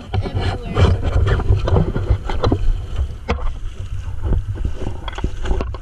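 Shallow river water splashing and sloshing against a waterproof action camera held at the water's surface and moved through it, with a low buffeting rumble and many short irregular splashes.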